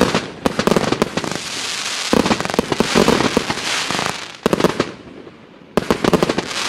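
Multi-shot firework cake (FP-B354) firing in salvos: clusters of sharp bangs come about five times, each trailed by a crackling hiss.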